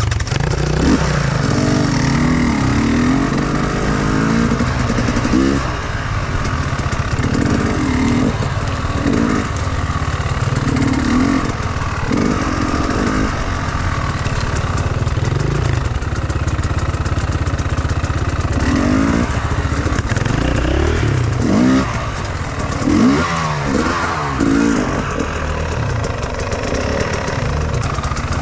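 Enduro motorcycle engine running, revving up and down again and again, with its pitch repeatedly rising and falling.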